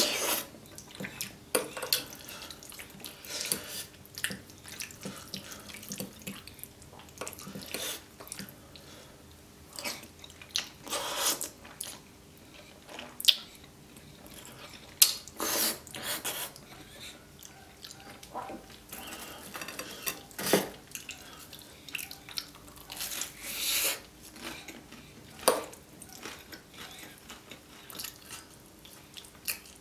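Close-miked eating of creamy fettuccine carbonara: wet slurping as the pasta strands are sucked in, and chewing, in irregular bursts with a few louder slurps.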